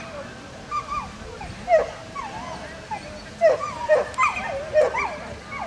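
Petit Basset Griffon Vendéen hounds yelping and whining in a string of short, high calls that slide down in pitch, coming irregularly and crowding together in the second half.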